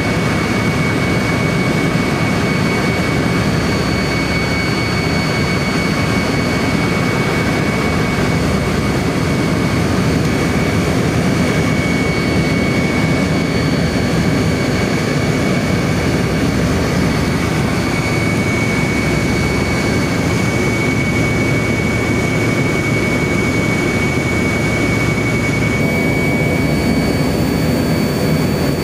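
Tupolev Tu-154B-2's rear-mounted NK-8-2U turbofan engines running steadily in flight, heard inside the cabin beside the engine nacelle: a constant rushing noise with a steady high whine over it.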